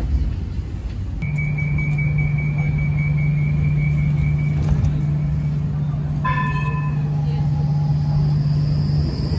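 Bombardier Flexity Outlook tram standing at a stop, with a steady low electrical hum. A high electronic tone holds for several seconds, then a short electronic chime sounds about six seconds in as its doors close.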